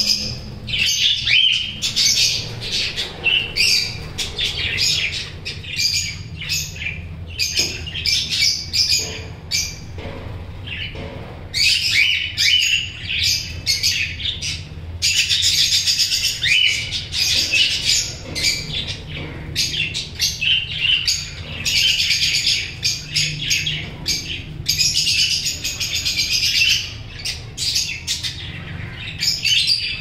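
A flock of budgerigars chattering and chirping: a dense run of short, high-pitched calls with a few brief lulls, over a low steady hum.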